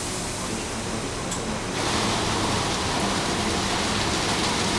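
Risense CF 350 rollover car wash running: a steady rush of water spraying over the vehicle as the brushes work, growing louder and brighter a little under two seconds in.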